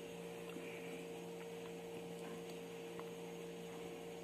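Steady low electrical hum with faint background hiss, and a few faint ticks.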